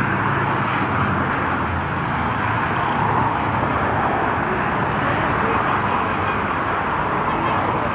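Steady jet-engine noise of an airliner at the airport: an even, unbroken rush with no sudden events.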